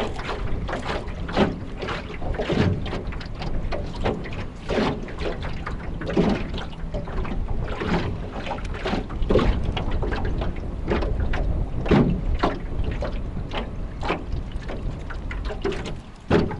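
Storm wind buffeting the microphone in a steady low rumble, with rough, choppy water slapping against a small fishing craft in irregular splashes about once or twice a second.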